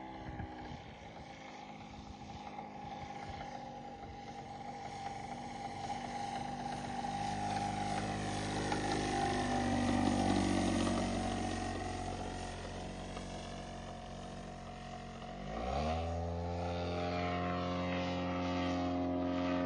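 3W-157 petrol engine of a large RC model airplane running in flight, its propeller drone growing louder and shifting in pitch as the plane passes near, then fading. About four seconds before the end the engine revs up sharply and holds the higher speed.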